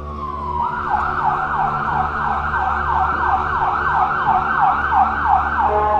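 Ambulance siren in a fast yelp, its pitch sweeping up and down about two or three times a second, changing to a steady held tone near the end.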